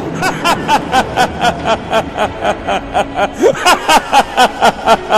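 A man's villain laugh, a long, rapid run of 'ha-ha-ha' at about four or five beats a second: the demon Mahishasura gloating at being made immortal.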